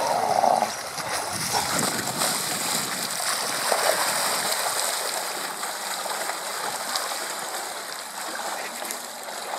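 Swimmers in wetsuits wading in and swimming in a river, their strokes and kicks splashing and churning the water in an irregular wash. The splashing is loudest in the first half and grows fainter toward the end as they move off.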